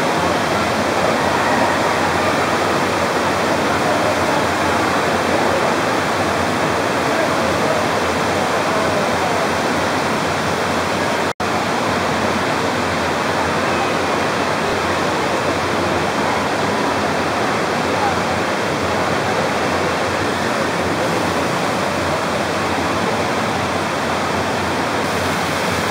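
Indoor water park hall ambience: a steady rush of falling and splashing water with the chatter of many bathers, cut off for an instant about eleven seconds in.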